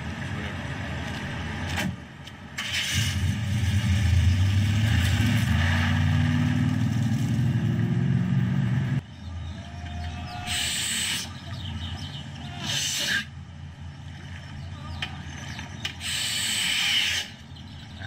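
A car engine running with a low rumble that rises slightly in pitch, then cuts off abruptly about nine seconds in. A quieter stretch follows with three short bursts of hiss.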